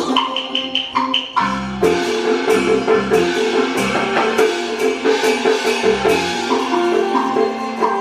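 Taiwanese opera accompaniment ensemble playing an instrumental passage: a few loud percussion strikes in the first two seconds, then a fast run of short melodic notes over quick wood-block beats.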